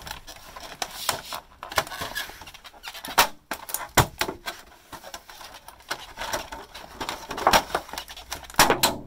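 Thin clear-plastic battery shelves crackling and knocking as UPS lead-acid battery packs are handled and moved, with a few sharper knocks about four seconds in and again near the end.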